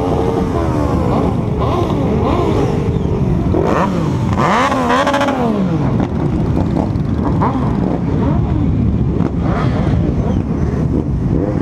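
Many motorcycle engines running together, with revs rising and falling as bikes move through the crowd; one engine revs up and back down about four to five seconds in.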